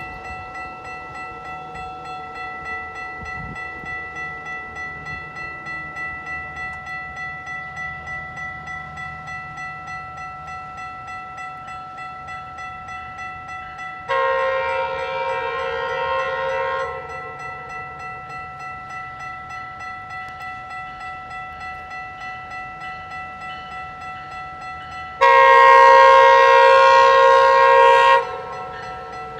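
GO Transit cab car's air horn sounding two long blasts of about three seconds each, the second louder, a harsh multi-note chord that is called a terrible, really bad horn. Under it, a crossing warning bell rings steadily and evenly.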